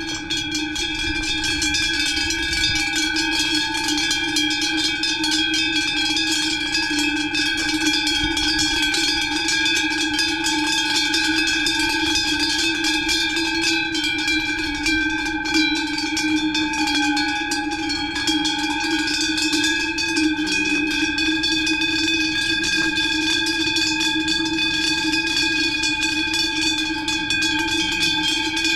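Cowbells on grazing cattle clanking continuously, many bells blending into a steady metallic jangle.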